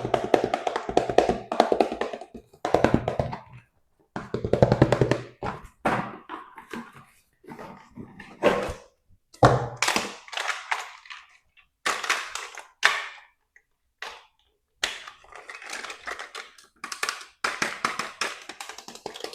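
Action figures and their plastic packaging being handled: irregular taps, knocks and rustling in short bursts with brief pauses between them.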